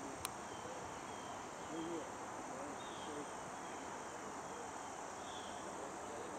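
Quiet outdoor ambience: insects chirping in short repeated calls and faint, distant voices over a steady background hiss, with one sharp click just after the start.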